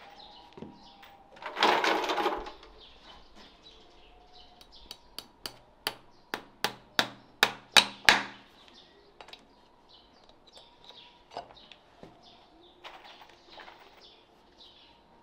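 A farrier's hammer striking about a dozen times in a quick, even run that grows louder toward the end, each blow ringing briefly. A short scraping burst comes about a second and a half in.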